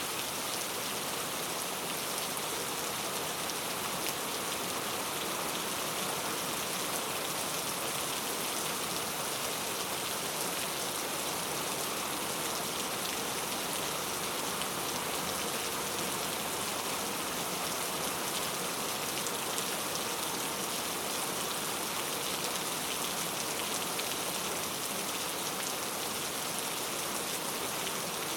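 Heavy rain falling and pattering on surfaces, a steady dense downpour with no change in intensity.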